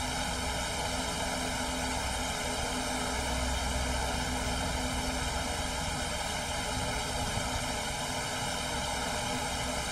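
Happymodel Mobula 8 micro FPV drone's motors and propellers whirring steadily in flight.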